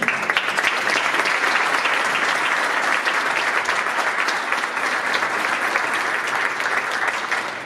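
Audience applauding, starting suddenly and holding steady before dying away at the very end.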